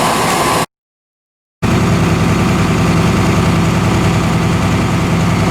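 A steady fan-like hiss, a second of dead silence, then a farm machine's engine running steadily with a low, even hum.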